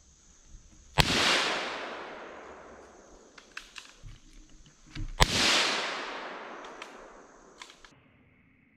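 Two scoped-rifle shots, about a second in and again about four seconds later, each a sharp crack followed by a long echo fading through the woods. A few small clicks come between the shots.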